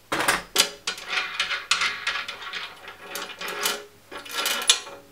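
A steel bottom bracket bearing press tool being taken apart by hand: the nut, washer and press discs clink, rattle and scrape as they come off the threaded rod and out of the bike frame's bottom bracket shell, with some metallic ringing.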